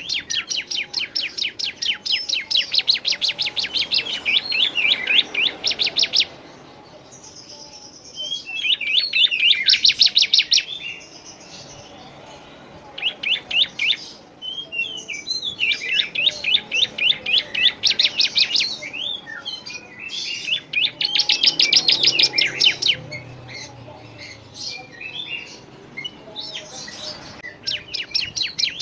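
Songbird song mixed from several species: fast chattering trills and sharp chirps in bursts of a few seconds, with short quieter gaps between them.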